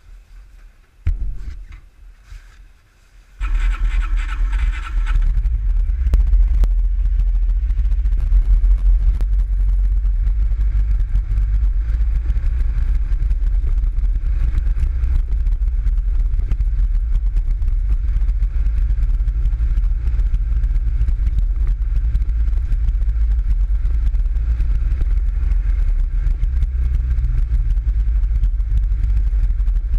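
PGO Bugracer 500i buggy: a few knocks, then about three seconds in the engine starts with a brief higher whine. It then runs steadily with a low drone as the buggy drives along a dirt trail.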